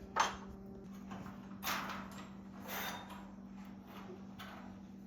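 Garage door spring hardware being tightened with a hand tool: about four short scraping, rasping strokes of metal on metal, over a steady low hum.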